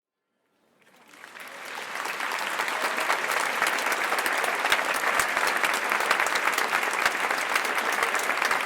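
Crowd applauding: after a moment of silence, dense clapping from many hands swells up within the first two seconds and then holds steady.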